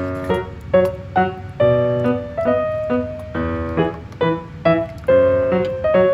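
Background music: a light piano or electric-piano melody with notes struck at an even pace.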